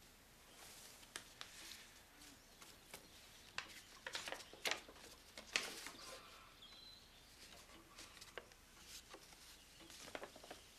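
Quiet room with scattered soft clicks and rustles, thickest in the middle, and one short high chirp about two-thirds of the way through.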